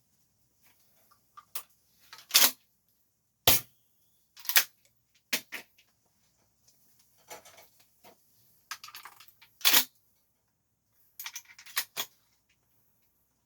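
APS CAM870 MK3 shell-ejecting airsoft pump-action shotgun being reloaded and worked by hand: a run of sharp, irregular clacks as shells are loaded and the pump slide is racked, with smaller rattles and clicks between them.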